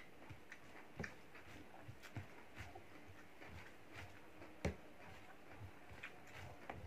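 A person eating by hand: quiet chewing and irregular soft clicks as fingers mix and pick up food on a plate, with one sharper click about two-thirds of the way through.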